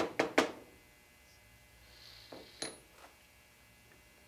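Small steel revolver hammer parts clicking and clinking as they are handled and set down on a plastic bench block. A quick run of sharp clicks at the start, then a few more about two and a half seconds in, one of them with a brief metallic ring.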